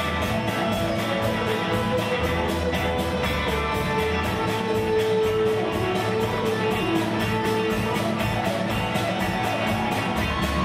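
Live rock band playing an instrumental passage: two electric guitars, a bass guitar and a drum kit keeping a fast, steady beat on the cymbals. Through the middle a guitar holds long notes.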